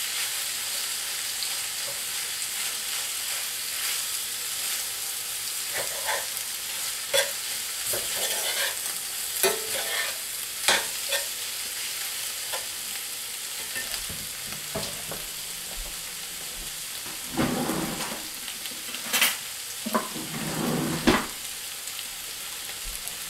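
Pork and cabbage filling sizzling in a cast iron skillet while a metal spoon stirs it, with clinks and scrapes of the spoon against the iron. The stirring stops near the end and the steady sizzle goes on.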